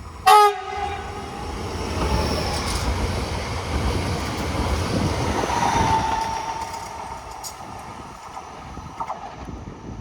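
A train sounds one very short horn blast, then runs past with a rumble and wheel noise that build to a peak about halfway through and then fade.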